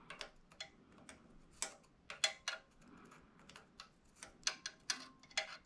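Irregular light clicks and taps of small metal hand tools and parts being handled, about a dozen scattered sharp ticks.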